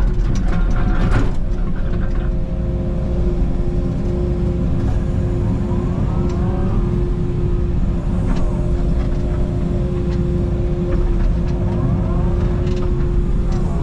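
Takeuchi TB290 mini excavator running under load while digging: a steady engine drone with a constant hydraulic whine, a few sharp clanks in the first second or so, and a pitch that slides up and down twice later on.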